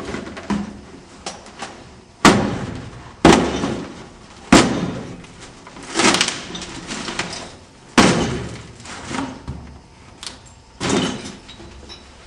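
A series of loud bangs or crashes: about six strong impacts a second or two apart, each ringing off briefly, with smaller knocks in between.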